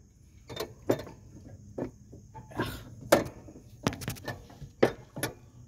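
Irregular handling knocks and clicks, about eight of them, as a rubber V-belt is worked onto the mower deck pulley of a John Deere E120 and the metal arm beside it is lifted.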